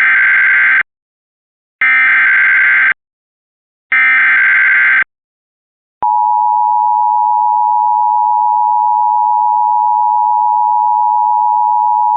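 Emergency alert broadcast: three short bursts of warbling data tones from the SAME header, about two seconds apart, then about six seconds in a loud, steady alert tone near 1 kHz begins, the attention signal that comes before a severe thunderstorm warning.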